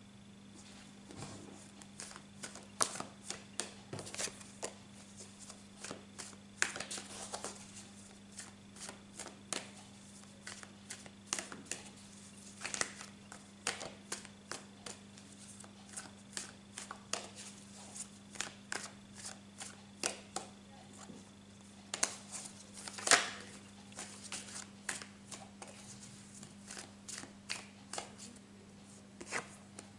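A tarot deck being shuffled by hand: a long run of irregular card flicks and slaps with a few louder snaps, the loudest about 23 seconds in.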